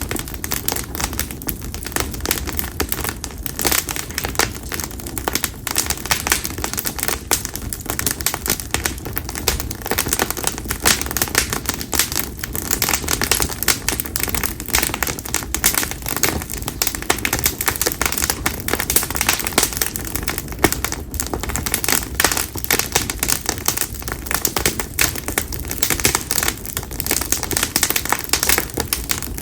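Split konara oak (Quercus serrata) firewood burning in an open campfire, crackling and popping continuously with dense, irregular snaps.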